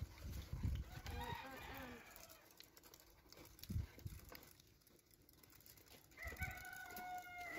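A rooster crowing in the background: a wavering call about a second in and a longer, held call near the end, with a few dull low thumps in between.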